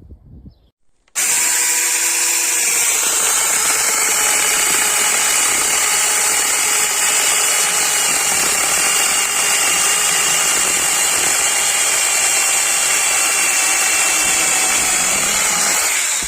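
SEESII 6-inch cordless electric mini chainsaw running steadily at full speed, a loud high-pitched motor and chain whine. It starts suddenly about a second in and cuts off abruptly near the end.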